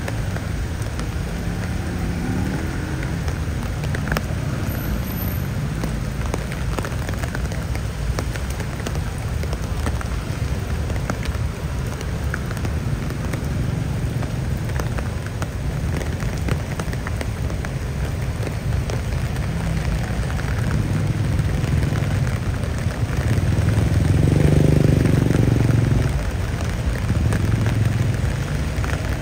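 Steady rain falling, with a constant patter of drops. Under it runs a low traffic rumble that swells loudest for a couple of seconds near the end.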